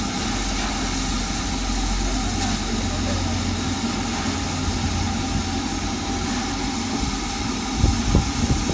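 Standing LMS Royal Scot class 4-6-0 steam locomotive No. 46100 'Royal Scot' hissing steam steadily, with a low rumble underneath. A couple of low thumps come near the end.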